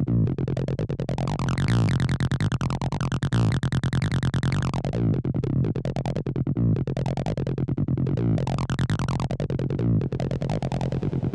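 Acid electronic music: a fast, repeating synthesizer line over a steady low beat. Its tone brightens and darkens in slow sweeps, opening around two seconds in, closing near five seconds, and opening again around eight to nine seconds.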